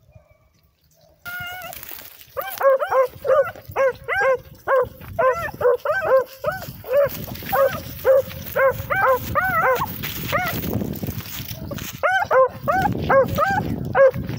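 A rabbit-hunting beagle giving tongue on a rabbit's scent trail, in rapid short barks of about three a second, a sign that the hound is running the track. The barking starts about two seconds in, breaks off for a couple of seconds, then picks up again near the end, over the rustle of brush.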